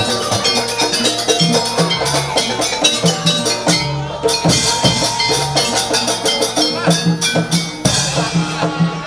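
Live jaranan accompaniment: drums and ringing gong-chimes play a steady, driving rhythm.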